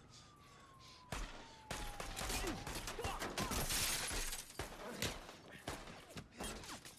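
A blast about a second in, followed by glass shattering and debris raining down on a car for several seconds, thinning to scattered impacts. A faint high ringing tone slides down in pitch through the first part.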